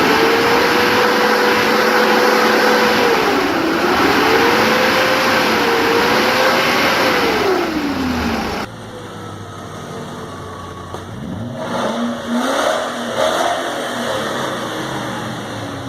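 BMW E34 engine sounds. First a loud, sustained high-rev engine note whose pitch holds, dips and climbs back a couple of times. Then, after a cut about halfway, a quieter clip with a few short revs.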